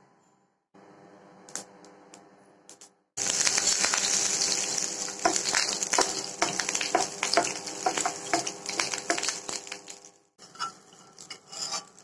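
Hot oil sizzling in a pan as a tempering of mustard seeds, curry leaves and red chillies fries, starting suddenly and loud about three seconds in, with crackling pops and a wooden spatula scraping and tapping as it is stirred. After a brief break near the end, a shorter spell of crackling.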